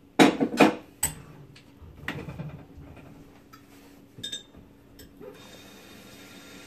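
Cookware clattering: several sharp knocks and clinks of pots, pans and a measuring cup being handled, loudest in the first second, then a few lighter scattered clicks. A faint steady hum remains from about five seconds in.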